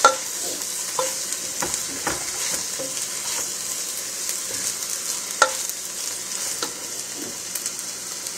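Fried rice and shredded vegetables frying with a steady sizzle in a nonstick pot while a plastic spoon stirs them. The spoon knocks and scrapes against the pot every second or so, loudest about five seconds in.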